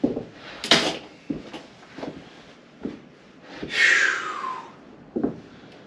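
Workshop handling noises: scattered knocks and clicks, a sharp click under a second in, and a louder swish about four seconds in that falls in pitch.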